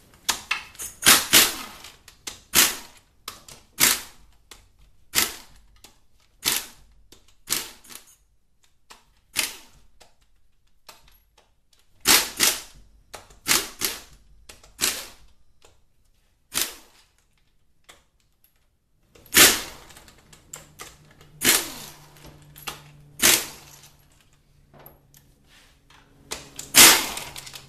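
Pneumatic impact wrench rattling in short bursts, one every second or so, as it spins out the bell housing bolts of a Ford CD4E automatic transaxle. There is a brief pause about two-thirds of the way through.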